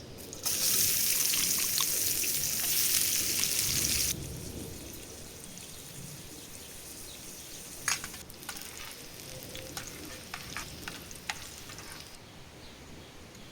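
Food sizzling loudly in hot oil for a few seconds, then dropping suddenly to a quieter sizzle while a utensil clicks against the pan in stirring.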